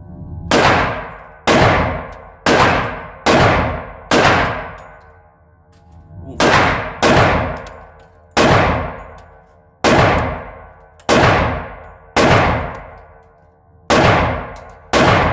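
Glock 20 10mm pistol fired slowly, about thirteen single shots with gaps of one to two seconds. Each crack is followed by a long ringing tail.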